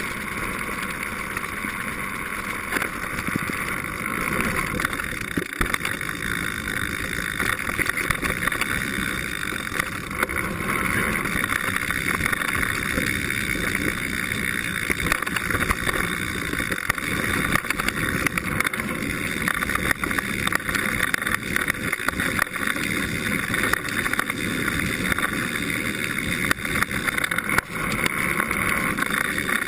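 Mountain bike rolling fast down a dirt trail, heard through a GoPro clamped to the seatpost: a steady rush of tyre and trail noise with constant small rattles and knocks from the bike.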